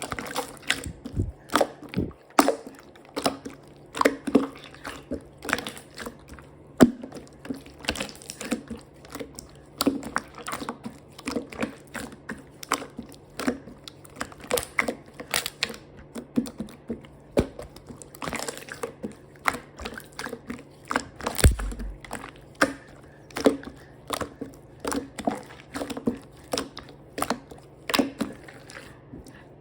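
Slime being squished, stretched and pressed by hand, giving an irregular run of sticky clicks and wet pops, a few each second.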